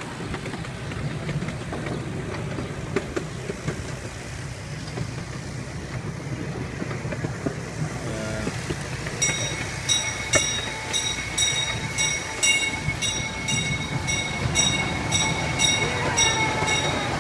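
Small-gauge ride-on train running along its track, its wheels and cars rumbling steadily. About nine seconds in, a high bell-like ringing starts and pulses about twice a second, matching a railroad-crossing signal bell.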